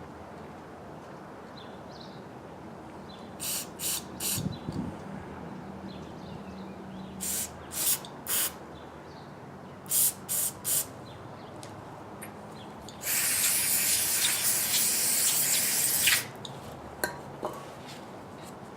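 Aerosol carburetor cleaner spraying through a small-engine carburetor's main jet. It comes in short bursts, three quick squirts at a time, three times over, then one long spray of about three seconds near the end. There is a single dull knock early on.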